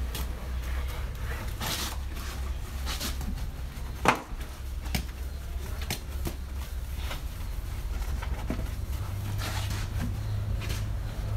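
Wash mitt wiping and scrubbing over a car's soapy body panels in short swishing strokes, over a steady low machine hum. One sharp knock about four seconds in stands out above the rest.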